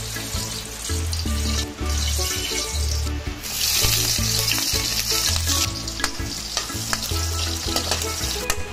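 Hot oil sizzling in a wok as eggplant fries, then garlic pieces frying in the oil, the sizzle loudest about four seconds in, with occasional clicks of a utensil against the pan. Background music with a repeating bass line plays underneath.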